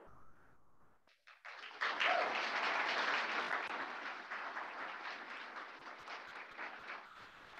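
Audience applauding, starting about two seconds in after a short pause and slowly dying away.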